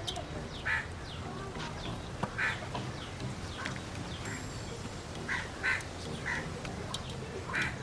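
Birds calling: a string of short, harsh calls at irregular intervals, about eight or nine in all, over a steady background hiss.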